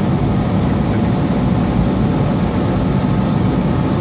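Steady low rumble inside a semi-truck cab cruising at highway speed: the diesel engine and tyre and road noise.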